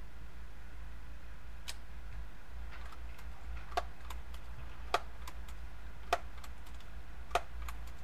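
Daisy PowerLine 901 multi-pump air rifle being pumped, its forend lever clicking at each stroke: a few faint clicks, then four sharper clicks a little over a second apart.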